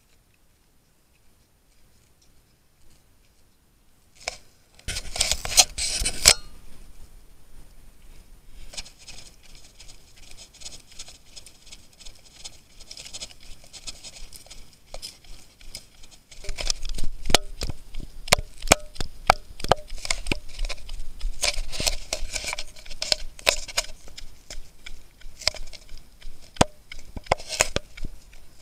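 Handling noise from an SJ1000 action camera carried while trail running: rubbing and irregular sharp knocks over a low rumble. It starts about four seconds in after a near-quiet start and is busiest in the second half.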